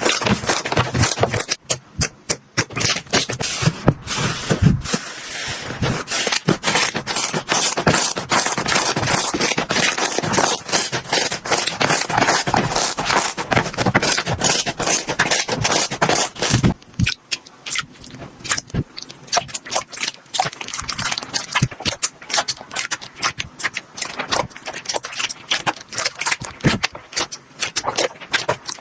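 Slime being squeezed, pressed and stretched by hand, making dense, wet crackling and popping as trapped air bubbles burst; the crackle is thickest in the first half and breaks into sharper, separate pops in the second half.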